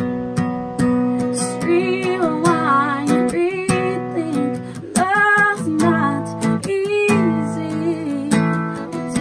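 A woman singing held notes with vibrato over a strummed acoustic guitar: a live acoustic country song.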